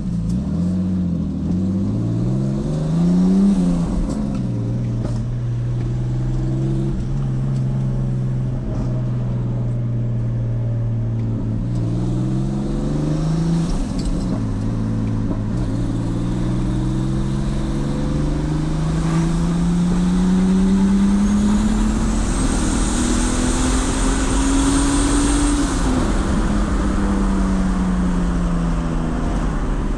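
Turbocharged BMW E46's engine pulling hard: the revs climb, hold steady for several seconds, then climb slowly for about ten seconds with a high whistle rising over the top of the climb, before falling away near the end. The engine is misfiring.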